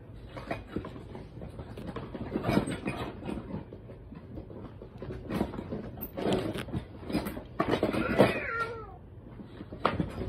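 Electronic FurReal Friends toy cat meowing several times, the clearest a meow falling in pitch about eight seconds in, among clicks and knocks of the toy being handled.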